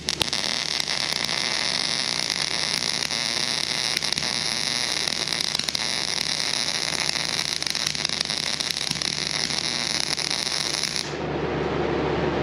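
Miller CP300 300-amp MIG welder's arc crackling steadily while laying a bead on mid-thickness steel plate. The crackle cuts off about a second before the end as the weld stops.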